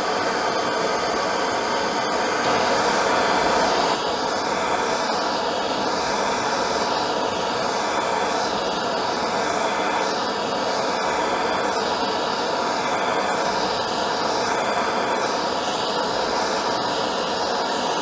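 Handheld gas blowtorch flame burning with a steady roaring hiss, heating hardened steel lathe centres to temper them to a light straw colour.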